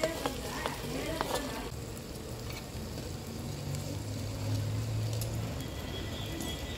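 Sizzling in a clay pot as boiled peas are tipped in, with a few light knocks in the first second or so, then boiled potato pieces dropped in. A low hum sounds for about two seconds in the middle.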